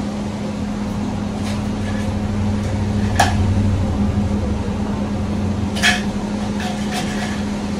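Steady hum of a running kitchen appliance, with light clicks and knocks of small items handled on a counter. The clearest knocks come about three seconds in and again near six seconds.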